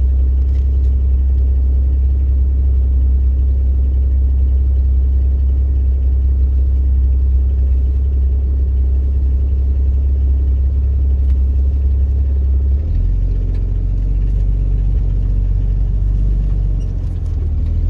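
Off-road vehicle's engine and drivetrain heard from inside the cab, a steady low rumbling drone as it drives slowly along a dirt trail; the drone shifts lower about thirteen seconds in.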